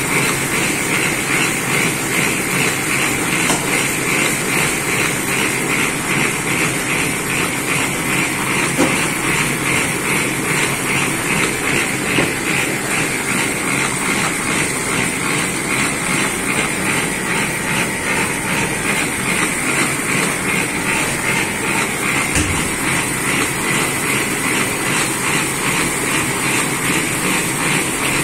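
Roll laminating machine running steadily as it presses plastic film onto printed carton sheets. Its rollers and drive make a continuous mechanical noise with a fast, even clatter and a steady high hiss.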